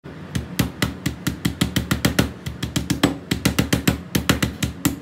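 A fast, irregular run of sharp strikes on a kitchen cutting board, about five or six a second, over a steady low hum.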